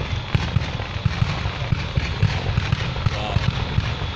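Fireworks going off in a rapid, irregular barrage of deep booms, several a second, over a steady crackling hiss.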